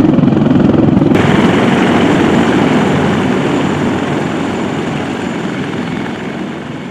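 CH-53E Super Stallion heavy-lift helicopter running loud, its rotor beat and turbine noise filling the air. About a second in the sound changes abruptly, with more hiss and less low rumble, then slowly fades.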